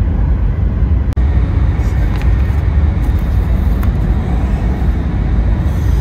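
Cabin noise of a Tohoku Shinkansen Hayabusa train running, heard from a passenger seat: a steady low rumble, with a brief drop-out about a second in.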